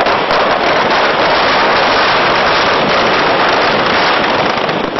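Dense, continuous crackling and bursting of firecrackers packed inside a burning Dussehra effigy, going off without a break.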